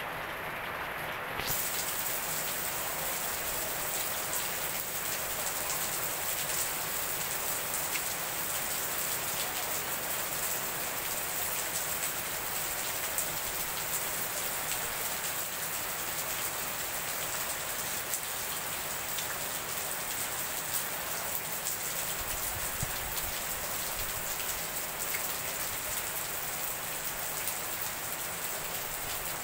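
Heavy rain pouring steadily onto wet paving tiles and shrubs, a dense, even hiss of rain with pattering drops. It turns brighter and fuller about a second and a half in.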